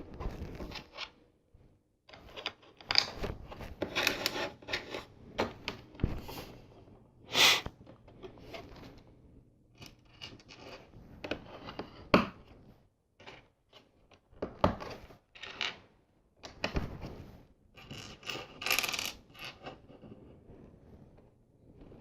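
Plastic LEGO pieces clicking, clacking and scraping in irregular bursts as parts are picked through and pressed together.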